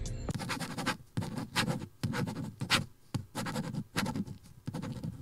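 Pen-writing sound effect: a run of irregular scratchy strokes, two or three a second, like a pen on paper.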